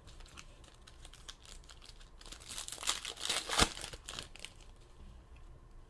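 Trading card pack wrapper crinkling and tearing along with cards being handled, a run of small crackles and clicks that is loudest in the middle.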